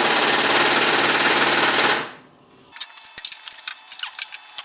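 Pneumatic impact wrench hammering away at a stubborn frame bolt, a loud fast rattle that cuts off about two seconds in as the bolt turns loose. Scattered light metallic clicks and knocks follow.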